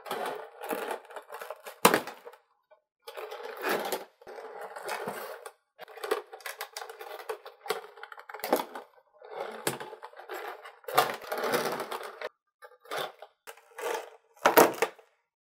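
Rigid clear plastic packaging crinkling and crackling in irregular bursts as it is handled, cut at with a small plastic safety cutter and pulled apart, with a sharp snap about two seconds in and another near the end.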